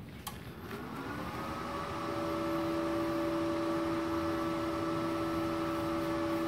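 MultiPro TIG 200A-SA IGBT inverter welder powering up: a click, then its cooling fan spins up with a rising whine over about a second and a half and settles into a steady hum.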